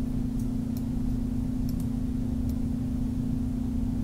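Steady low hum of recording background noise, with a few faint computer-mouse clicks in the first half as the sliders are worked.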